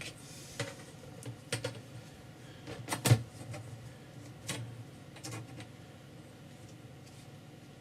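Pieces of book board and card being handled, set down and tapped on a work surface: a series of light knocks and taps, the loudest a pair about three seconds in, easing off toward the end.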